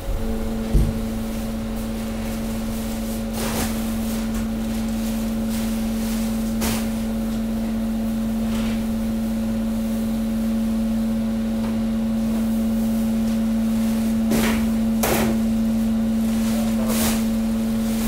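Hydraulic press working at 190 bar: a steady hum from its pump under load comes on at the start as the ram compacts sacks of industrial waste, with scattered sharp cracks and pops as the load gives way.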